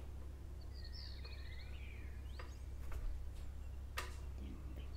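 Faint bird chirps, a few short high calls near the start and again at the end, over a steady low hum, with a few soft clicks in between.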